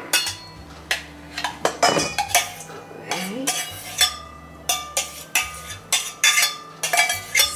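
A small stainless-steel saucepan knocked and scraped against a stainless-steel stand-mixer bowl as cold mashed potato is emptied into it: irregular metal clinks and knocks, some with a short ring.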